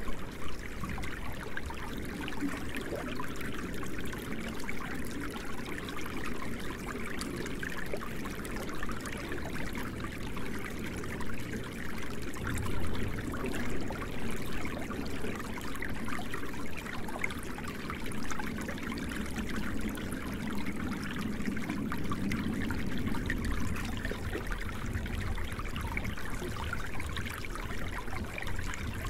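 Running water, steady and unbroken.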